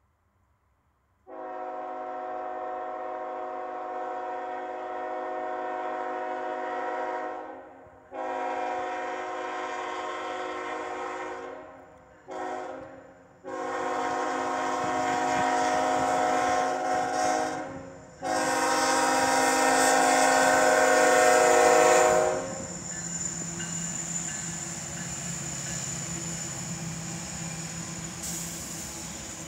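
CSX freight locomotive's air horn sounding the grade-crossing signal: two long blasts, a short one, then a last long blast with a brief break, the loudest part, held as the locomotive nears the crossing. It cuts off and gives way to the diesel locomotive's engine and steel wheels running over the crossing as the train passes slowly.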